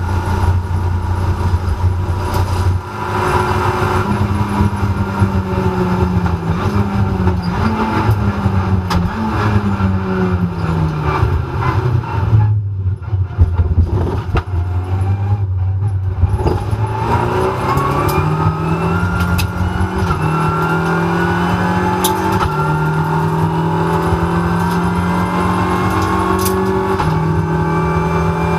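Renault Clio Cup race car's 1.3-litre turbo four-cylinder heard from inside the cockpit. It holds high revs at first, then the revs fall in steps as the car slows for a corner. About seventeen seconds in it climbs again under acceleration, with gear changes near the end.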